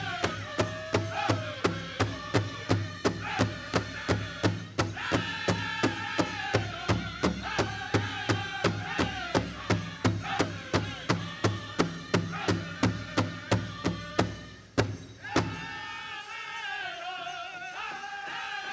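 Pow wow drum group playing a grass dance song: a large powwow drum beaten in a steady beat of about three strokes a second under high group singing. About fifteen seconds in, the drum stops on a hard final beat and the voices carry on without it.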